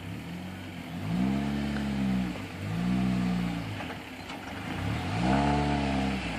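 Off-road vehicle's engine revving in repeated surges, its pitch rising and falling about four times.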